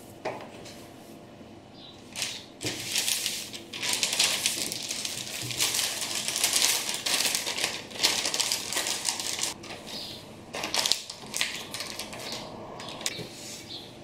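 Plastic phyllo pastry packet crinkling and rustling as folded sheets are pushed back inside, loudest from about two seconds in until about ten seconds, then in shorter crackles.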